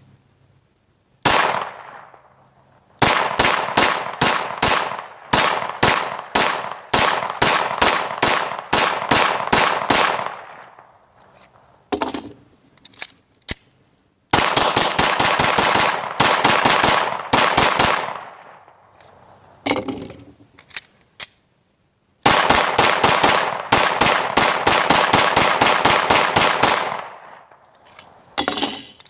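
9mm Glock 19 Gen 3 pistol shots: a single shot about a second in, then several long strings of rapid fire with short pauses between them.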